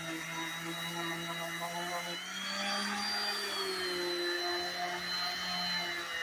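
Electric sanding tool's motor running with a steady hum; a little after two seconds in it speeds up, rising in pitch, then settles back to its earlier speed about a second and a half later, as when the load on the sander eases and returns.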